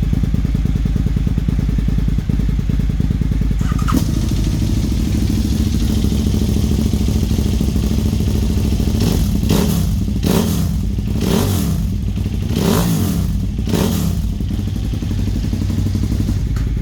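2008 KTM 990 Super Duke's V-twin idling, then revved in a quick string of throttle blips between about nine and fourteen seconds in, each falling back to idle.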